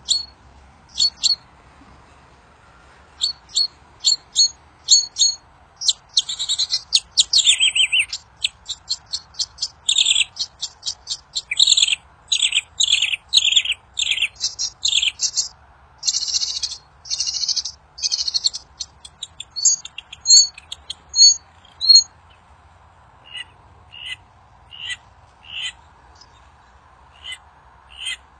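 A wild songbird, the one known to Indonesian bird-keepers as 'burung kincir angin', singing. Its song is sharp, high whistled notes and fast chattering runs, which come thinner and more spaced out near the end. A faint steady hum lies underneath.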